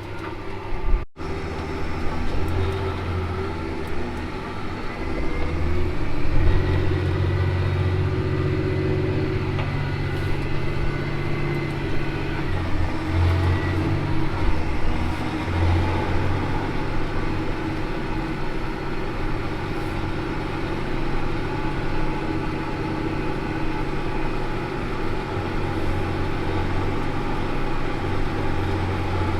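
Large diesel engine of farm harvest machinery running steadily, with a brief break about a second in and a heavier low hum from about six seconds on.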